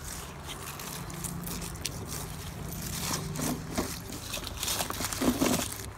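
Jetson Rave Extreme Terrain hoverboard rolling over asphalt strewn with dry leaves: irregular crunching and crackling from the wheels, thicker toward the end, with a low steady hum for a couple of seconds near the start.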